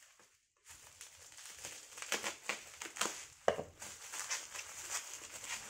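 Plastic bubble wrap crinkling and rustling as it is pulled off a bottle by hand, starting just under a second in, with one louder crackle about three and a half seconds in.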